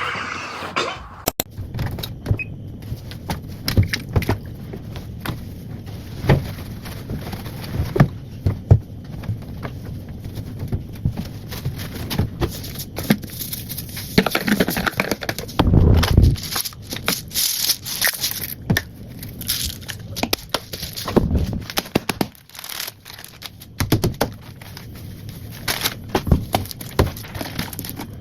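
Irregular knocks and thuds with rustling and crackling, as of things being handled and moved about.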